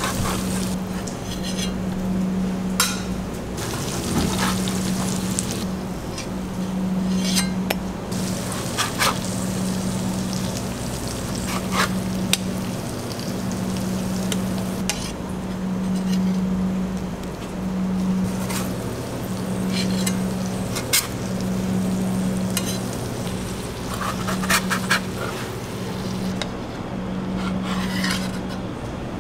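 Beef burger patties sizzling on a flat-top griddle, with metal tongs clicking and scraping against the griddle now and then. Under it runs a low hum that swells and drops every second or two.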